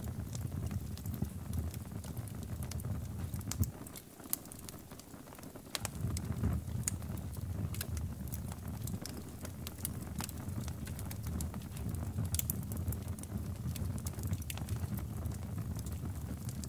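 Scattered crackles and pops from small flames on the melted remains of a burning plastic mini fan, over a low rumble that drops away for about two seconds around four seconds in.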